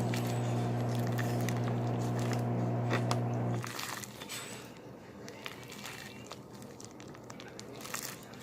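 Microwave oven running with a steady electrical hum that cuts off abruptly about three and a half seconds in, followed by faint clicks and handling noises.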